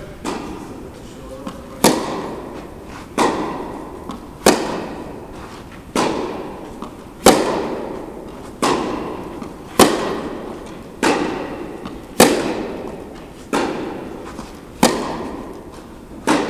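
Tennis rally: a ball struck back and forth with rackets, one sharp pop about every second and a quarter, about a dozen in all. Each strike rings on in the echo of a large indoor tennis hall.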